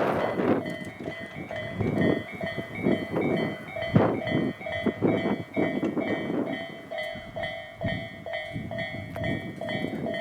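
Japanese level-crossing warning bell ringing in a steady repeating clang while a Tobu Ogose Line train passes over the crossing, its wheels rumbling and knocking on the rails. The loudest knock comes about four seconds in.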